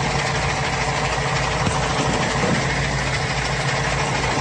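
Heavy truck engine running steadily at idle, its pitch even throughout.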